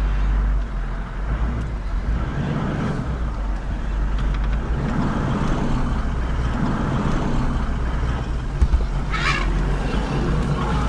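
Vehicle engine idling with a steady low rumble. A short, sharp higher sound cuts in briefly about nine seconds in.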